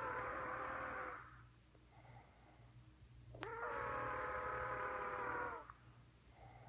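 Loud, rhythmic snoring with a steady tone, likened to Darth Vader's breathing. Two long snores, each about two seconds: one ends about a second in, and the next starts about three and a half seconds in.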